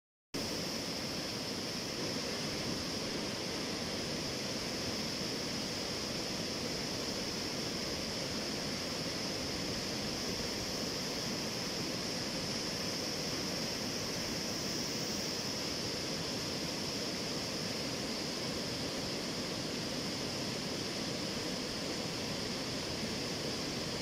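Floodwater rushing over rock rapids in a swollen, muddy stream: a steady, unbroken rush of water.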